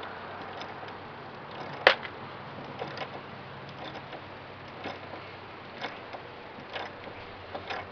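A screw being driven with a wrench fitted on the back of a screwdriver: one sharp metal click about two seconds in, then soft clicks about once a second as the tool is worked round.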